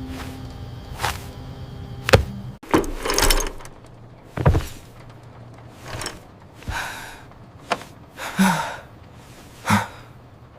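A series of sharp knocks and thuds, about one every second or two, with short swishing sounds between them.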